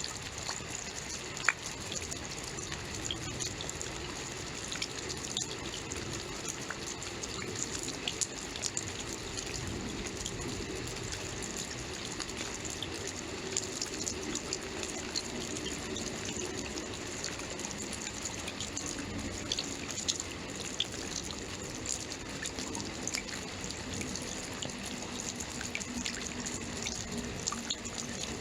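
Steady rainfall, a dense patter of drops with scattered sharper drip ticks.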